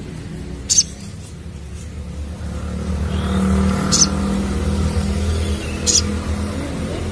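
A motor vehicle's engine running close by, its hum swelling louder a few seconds in, with three short high chirps from a crimson sunbird about two seconds apart.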